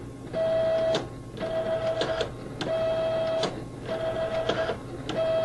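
Datacard CD800 ID card printer running its cleaning-card cycle: the card transport motor whirs in about five short runs of just under a second each, each ending in a click, as it drives the cleaning card through the printer several times.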